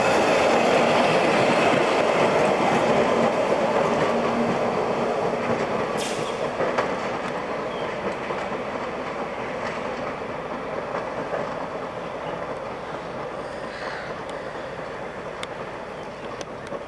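Melbourne W class tram running past on street track, its rolling rumble loudest at first and fading steadily as it moves away, with one sharp click about six seconds in.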